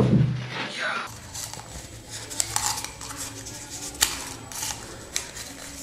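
A knock at the start, then scattered light clicks and taps of small plastic wall plugs being handled over a hard plastic tool case.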